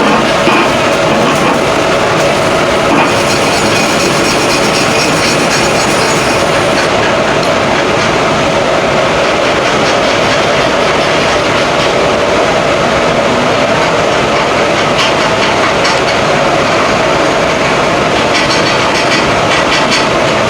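Welding arc crackling steadily and continuously, with a steady hum underneath.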